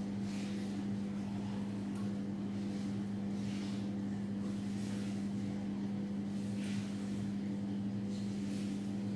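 A steady low electrical hum from a running appliance, with faint soft hissy swishes every second or two.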